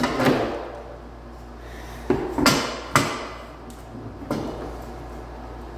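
Painted metal brooder parts knocking and clanking against each other and the plastic tub as they are pressed into place by hand: about five sharp knocks at irregular intervals, with the loudest pair about halfway through.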